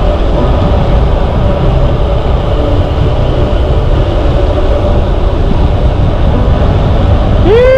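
Loud wind rumble buffeting the microphone of a bicycle moving fast downhill. Near the end a long shouted "Yeah!" rises and then holds steady.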